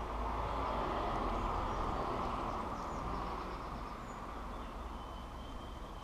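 Outdoor garden ambience: a broad rushing noise swells over the first couple of seconds and slowly fades, with faint high bird chirps and a brief thin whistle near the end.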